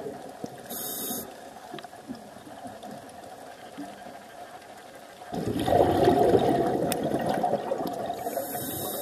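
Scuba diver breathing through a regulator underwater: a short hiss of air near the start, then, about five seconds in, a sudden loud rush of exhaled bubbles that lasts a few seconds and fades, with another hiss near the end.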